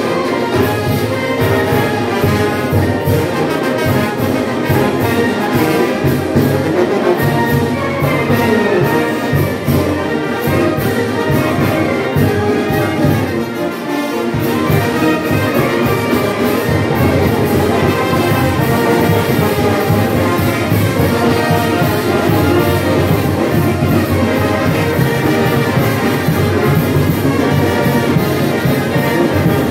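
Village brass band (banda filarmónica) playing together: trumpets, saxophones, clarinets, baritone horns and sousaphone over a steady drum beat, with a brief dip in level about halfway through.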